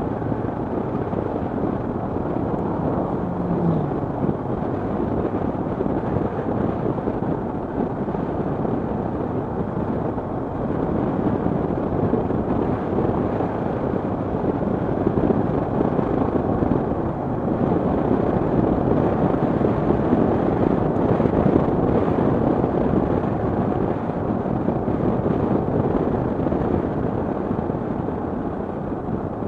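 A motorcycle being ridden at road speed: engine and rushing wind noise mixed into a steady dense rumble, somewhat louder through the middle stretch.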